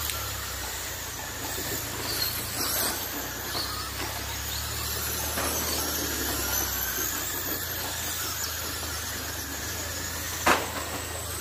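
A pack of electric RC short-course trucks racing on a dirt oval: their motors' high whine rises and falls as they pass, over the hiss of tyres on dirt. One sharp knock about ten and a half seconds in.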